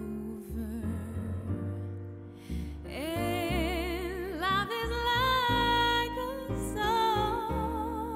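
A woman singing solo over a recorded accompaniment. About three seconds in, her voice swells up into long held notes with a wide vibrato.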